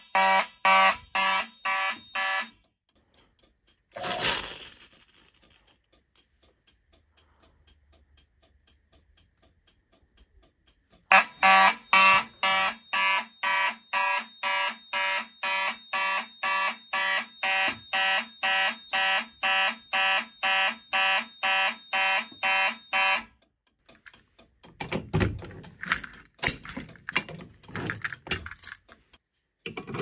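Simplex and Faraday fire alarm horns sounding together in a fast pulse, about three blasts a second. They stop about two seconds in, and after a short broad noise and a quiet stretch they sound again from about eleven seconds in to about twenty-three. Near the end come small rattles of keys being handled at a pull station.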